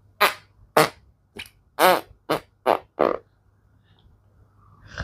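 Seven short fart sounds in quick succession over about three seconds, some with a buzzing, pitched tone.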